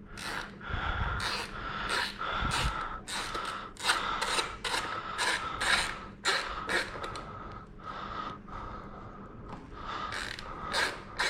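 Hand ratchet being worked to do up a bolt tight, a run of short clicking strokes about two a second.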